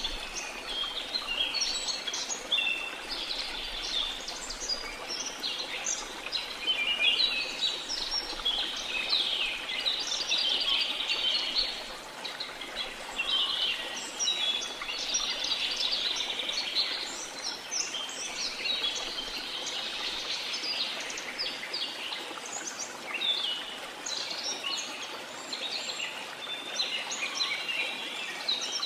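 A dense chorus of many birds chirping without pause, high-pitched and overlapping, over the steady rush of a waterfall.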